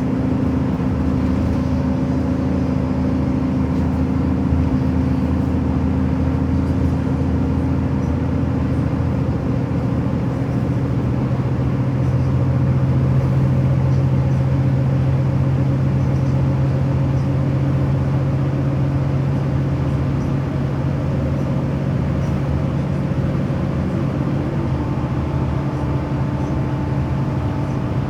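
Steady drone of a vehicle's engine and running noise, with low tones that shift slightly in pitch about a third of the way in and again near the end.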